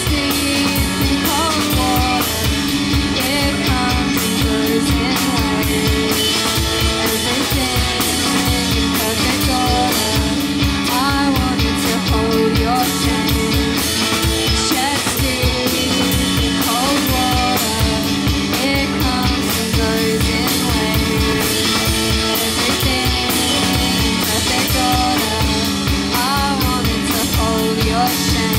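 Live rock band playing: amplified electric guitar and a Yamaha drum kit, with a woman singing over them.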